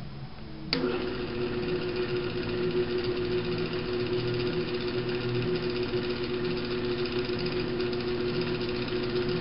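Electric drill press switched on with a click about a second in, then running steadily with an even motor hum while it bores a hole in wood.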